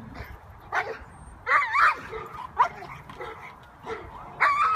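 Young dog barking in agitation at a helper with a stick, on a long line during protection work: four bursts of barking about a second apart, two of them drawn out into a high, wavering yelp.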